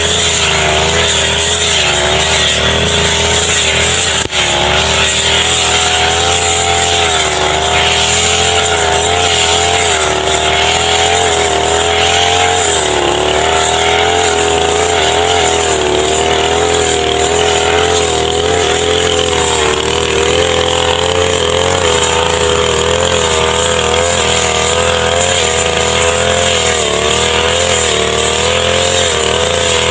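Brush cutter engine running fast, its pitch wavering up and down and dipping briefly about twice.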